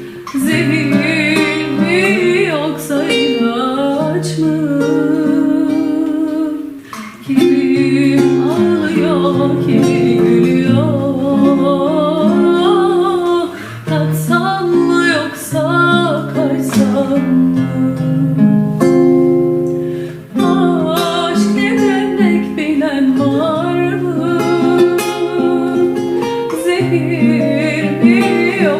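Music: acoustic guitar accompaniment with a kaval, the Turkish end-blown flute, carrying a wavering, ornamented melody.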